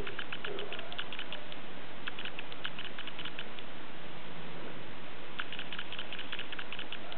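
Rat making rapid series of short, high clicks or squeaks, in three bursts separated by short pauses.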